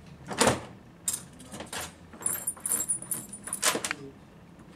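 Small steel parts of a Bosch GBH 5-40DCE rotary hammer's front end clinking and rattling as the retaining rings and sleeves on the tool-holder barrel are handled by hand. A high metallic ringing runs through the middle, and the loudest clink comes near the end.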